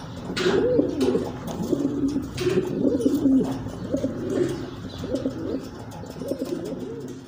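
Domestic pigeons cooing, one rolling coo after another with some overlapping, fading near the end.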